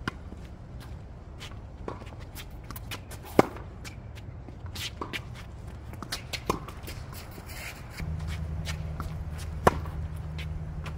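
Tennis rally on a hard court: sharp pops of rackets striking the ball, the loudest about three seconds in and again near the end, with quieter pops and shoe scuffs between. A low steady rumble sets in about eight seconds in.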